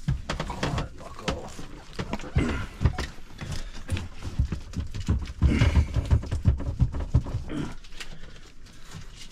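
Irregular knocks, bumps and rustling from a sanitation hose being handled and dragged through a boat's cabin, busiest about halfway through.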